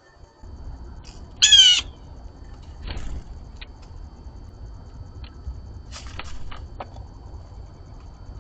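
Blue jay giving a single loud, short call with a quavering pitch about a second and a half in, followed by a few soft clicks and taps.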